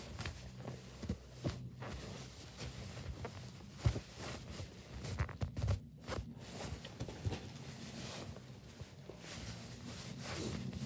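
Hands squeezing and rubbing soft foam squishy toys, a Minion-shaped one and then a french-fries one, giving faint scrunching and rustling with a few sharp taps, over a steady low hum.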